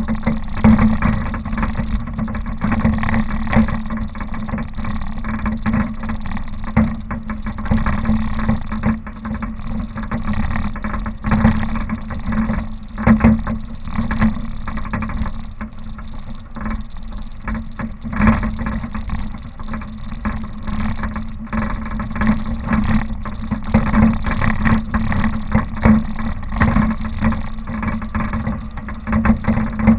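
Suzuki Vitara driving off-road: the engine runs with a steady drone under a constant low rumble, broken by frequent short jolts and knocks.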